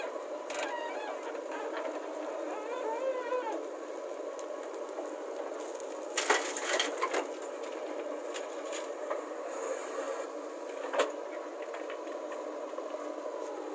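JCB 3DX backhoe loader's diesel engine running steadily while loading earth into a tractor trolley. A burst of clattering knocks about six seconds in is the bucket and soil hitting the trolley, and a single sharp knock comes near the end.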